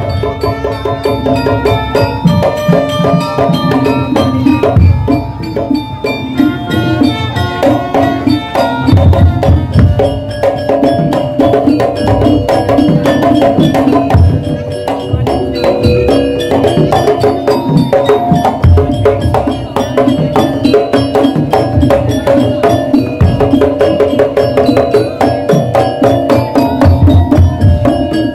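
Madurese daul percussion ensemble playing a fast, unbroken rhythm: rapid drum strokes with heavy low hits, and struck pitched percussion ringing over them.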